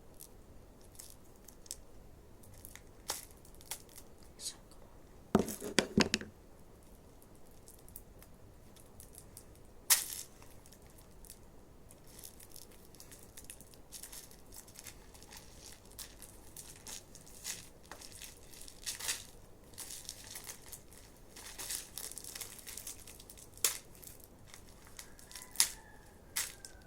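Plastic toy packaging crinkling and tearing as it is opened by hand, with scattered crackles and a few sharp, louder noises about five to six seconds in and again near ten seconds.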